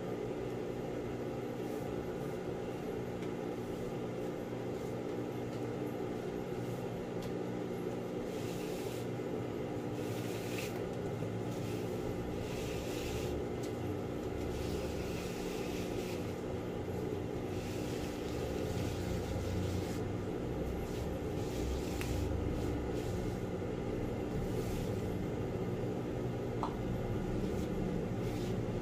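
Industrial sewing machine's motor running steadily without stitching, a constant low hum; the plastic sheet rustles and crinkles as it is handled a few times in the middle.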